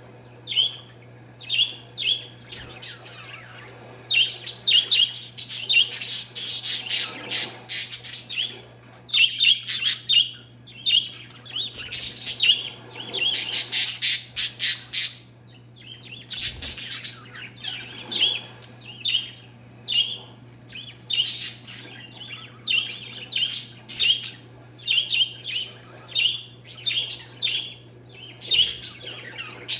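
Pet parakeets and zebra finches chirping and calling together: rapid runs of short, high calls that come in overlapping bursts, over a low steady hum.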